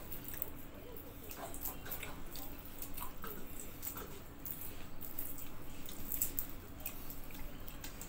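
Quail eggshells being peeled by hand: faint, irregular small cracks and crackles.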